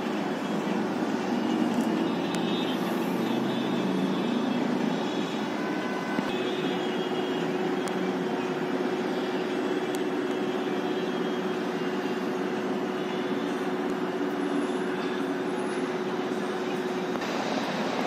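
Steady road traffic noise, an even rumble and hiss with a faint steady hum through the middle.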